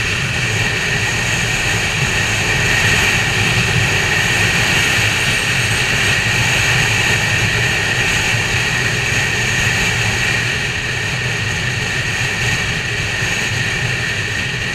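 Motorcycle riding at a steady road speed: a steady rush of wind on the onboard microphone over the engine and tyre noise, with no gear changes or revving.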